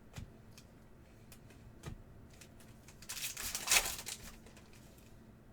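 Trading cards and packs being handled: two light taps, then about a second of crinkling rustle past the halfway point.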